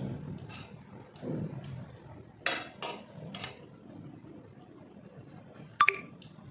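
Scattered clicks and knocks of tableware being handled while eating, with one sharp clink near the end that rings briefly.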